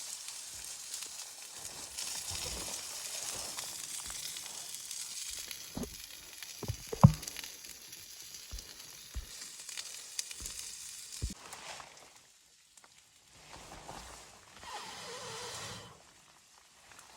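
Food sizzling in a pan, a steady frying hiss broken by several sharp knocks, the loudest about seven seconds in. The sizzling fades about twelve seconds in, leaving a few soft rustling swishes.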